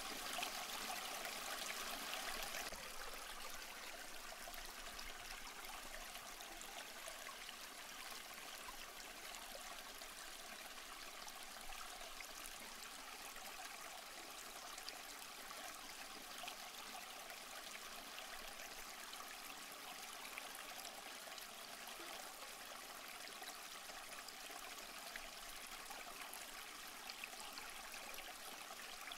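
Aquarium water trickling and bubbling steadily from the tank's filter and air bubbles, with many small pops and splashes. It drops a little in level about three seconds in.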